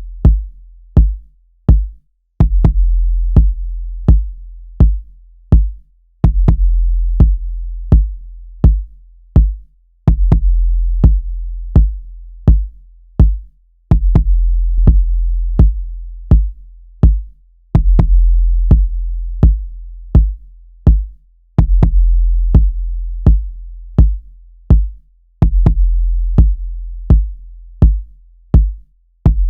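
Looped drum-machine beat from Native Instruments Maschine drum synths: a long, deep sub-bass kick that rings out and restarts about every four seconds, under shorter, punchy drum hits about twice a second.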